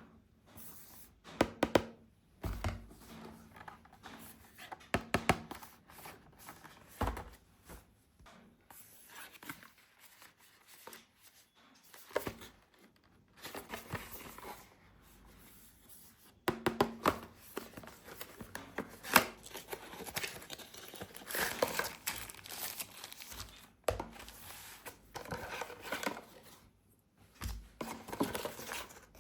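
Toy packaging being opened by hand: plastic and cardboard crinkling and tearing, with scattered sharp clicks and knocks.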